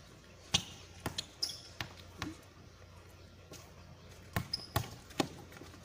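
Basketball bouncing on an outdoor concrete court during play: a run of sharp, irregular bounces, a quieter gap in the middle, then another cluster of bounces near the end.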